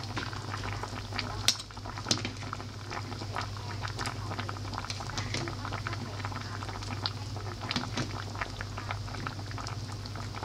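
Chicken braise simmering in a pot: the liquid bubbles with a dense stream of small pops and ticks, over a steady low hum. Two sharper clicks come about a second and a half and two seconds in.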